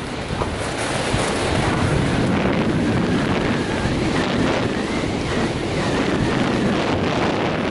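Wind rushing over a skier's body-mounted camera microphone during a downhill run, a steady loud rush, mixed with the hiss of skis on packed snow.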